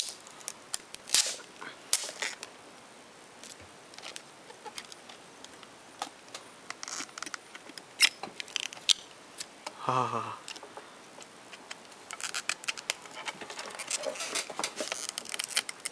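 Plastic wrapping pulled off a clear plastic product box by its tear tab, crinkling and crackling in scattered clicks, thickest near the end. There is a brief pitched sound that falls in pitch about ten seconds in.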